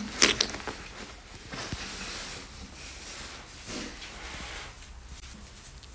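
Rustling and handling noise from a pet otter clambering over a person's coat and scarf, with a couple of sharp clicks near the start, then softer rustling that fades.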